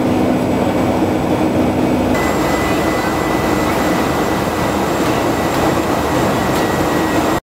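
Jet airliner cabin noise in flight: the steady rush of the engines and airflow heard from a passenger seat, with a low hum that shifts to a different tone at an edit about two seconds in. It cuts off suddenly at the end.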